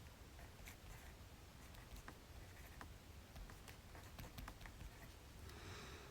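Faint pen-on-paper writing: scattered small taps and clicks of the pen tip, with a longer scratching stroke near the end.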